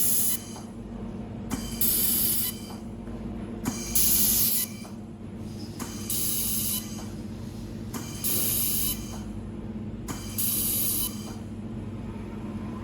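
Automatic XYZ-axis laser welding machine working through a series of welds: a hissing burst of about three-quarters of a second, each opened by a click, comes about every two seconds over a steady machine hum.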